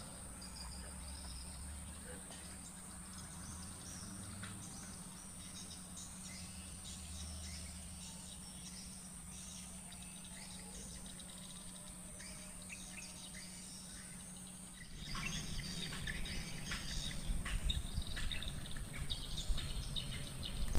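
Steady high-pitched drone of insects in a swamp forest, with faint bird chirps. About fifteen seconds in, a louder rustling, rumbling noise comes in over it.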